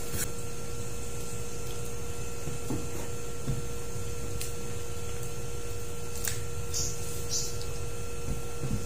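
Steady electrical hum in a small room, with a few faint clicks and two brief soft scrapes as a wooden ladle serves stew from a clay pot onto rice.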